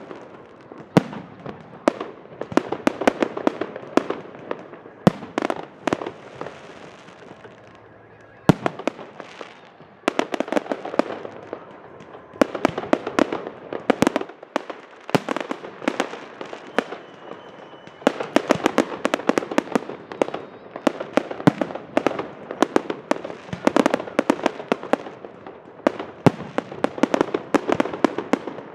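Fireworks display: rapid volleys of bangs and pops as shells go off in the sky, many in quick succession. The volleys thin out for a few seconds about five seconds in, then come thick and fast again.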